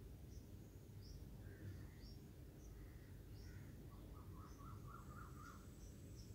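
Near silence: faint low background hum, with faint distant bird chirps scattered through it and a quick run of chirps about four seconds in.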